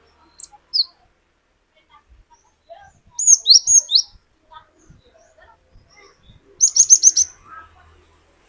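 Cinereous tit (glatik batu) singing: two short notes, then a phrase of four quick falling whistles, and later a rapid run of about six high notes.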